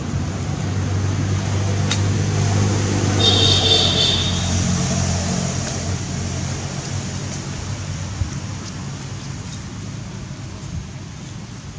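Engine of a passing road vehicle running, swelling over the first few seconds and then fading away, with a brief high-pitched sound about three seconds in.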